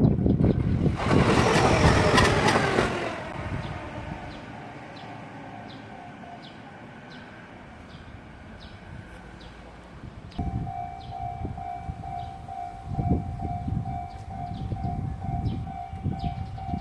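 A train passes a level crossing with its horn sounding, loudest in the first three seconds, while the crossing's warning bell rings in steady repeated pulses. About ten seconds in, the bell's tone comes back strongly along with low rumbling of rail traffic.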